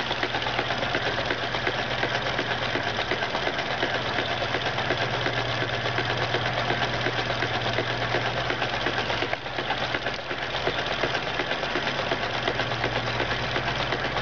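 A small motor running steadily, a fast even rattle over a low hum, dipping briefly twice about two-thirds of the way through.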